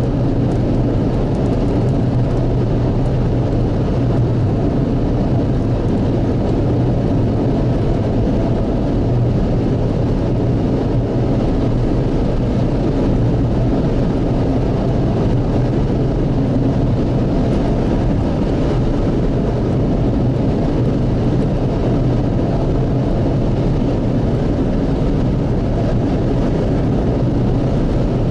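Steady low rumble of a car driving at highway speed, heard inside the cabin: engine and road noise with a constant low hum.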